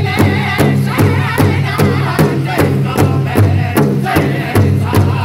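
Northern-style powwow drum group singing an intertribal song: several men strike one large shared drum in an even beat, about two and a half strikes a second, under high wavering unison singing.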